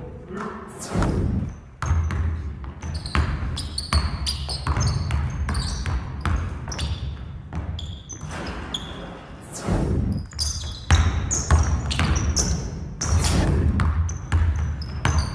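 A basketball bouncing and being dribbled on a wooden gym floor, with short sneaker squeaks on the court, echoing in the large hall.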